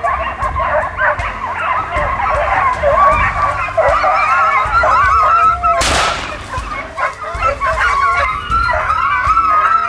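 A pack of short-haired black-and-tan Segugio Italiano hounds giving tongue in full cry on a hare's trail: many overlapping wavering bays and yelps. One sharp bang cuts through about six seconds in.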